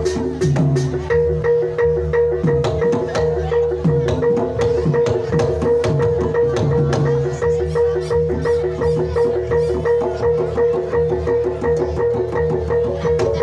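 Banyumasan gamelan music for tayub: a wooden-keyed xylophone plays in quick, even strokes. Kendang hand-drum strokes bend downward in pitch about once a second, and a steady held note sounds beneath them.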